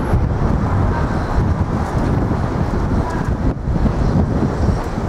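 Outdoor city street noise: wind rumbling on the microphone over the steady sound of passing traffic.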